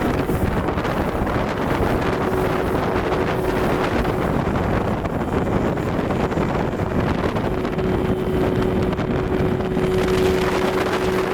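A small fishing boat's motor running steadily at speed, a constant engine hum under a rush of wind and water noise on the microphone.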